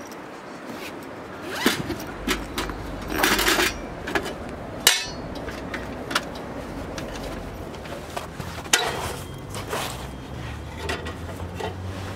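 Irregular knocks, clinks and short scrapes of hard gear being handled, with one sharp click about five seconds in.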